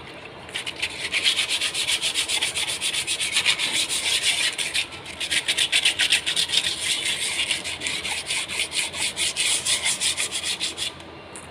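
Rapid, rhythmic scraping strokes, several a second, starting about half a second in and pausing briefly around the middle.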